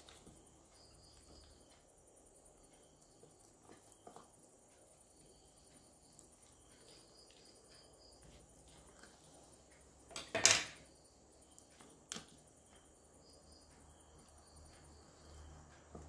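Kitchen knife cutting through a raw whole chicken on a wooden cutting board: quiet slicing with a few small clicks, then one loud sharp crack about two-thirds of the way through as the blade goes through the leg joint, and a smaller knock shortly after.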